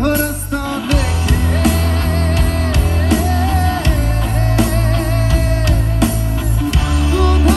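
Live band playing on stage: drum kit, bass guitar and electric guitar over a strong bass line, with one long, wavering melody note held for most of the passage.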